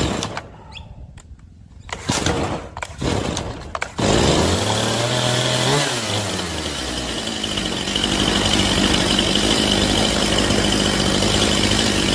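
Stihl MS181 C chainsaw's two-stroke engine being started: after a few short sounds it fires about four seconds in, revs briefly, then settles into a steady idle. The idle sits at about 3,000 RPM, a little fast against a 2,800 RPM target, before the low-speed carburettor setting is adjusted.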